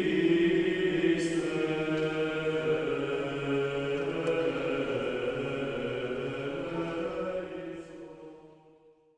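Choral chant sung as background music, voices holding long sustained notes, fading out near the end.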